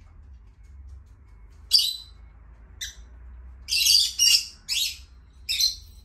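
Small parrots giving short, high chirps and squawks, about six of them from around two seconds in, some in quick pairs, over a faint low room hum.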